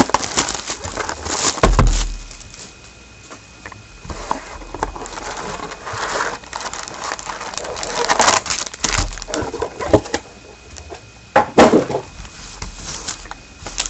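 A sealed trading-card box being torn open, its cellophane wrapper and cardboard crinkling and rustling in irregular bursts, with a few sharp clicks and snaps.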